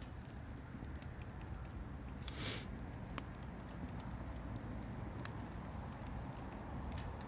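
Bonfire with a whole log in it, crackling: scattered sharp pops over a low rumble, with a short hiss about two and a half seconds in.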